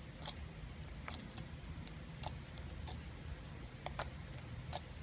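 Slime being squeezed and poked by hand, giving irregular sharp clicks and pops, about two a second.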